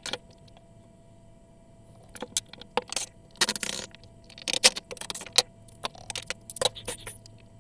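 Handling noise at a workbench: an irregular series of light clicks, rattles and knocks as tools and wooden parts are picked up and set down.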